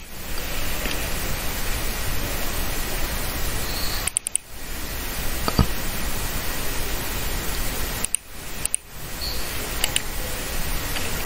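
Steady hiss of background noise on the recording, with two brief dips about four and eight seconds in and a single sharp click about five and a half seconds in.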